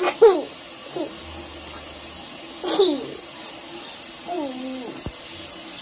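Tap water running steadily into a bathroom sink, with a young girl's high-pitched laughs and squeals breaking in several times over it.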